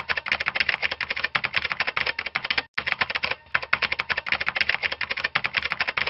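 Typing sound effect: rapid keystroke clicks, about ten a second, with a short break about halfway through, keeping time with text being typed out on screen.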